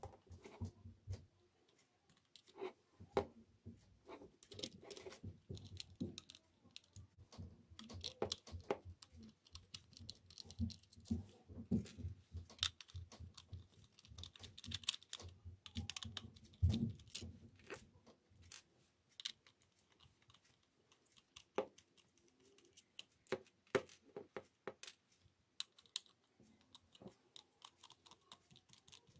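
Irregular clicks, taps and scrapes of a precision screwdriver working the small screws out of a Braun Series 5 electric shaver's plastic housing, with the shaver and its plastic parts being handled.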